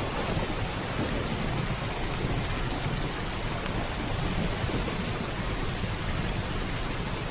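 Heavy rain pouring steadily on a roof, with a continuous low rumble of thunder underneath.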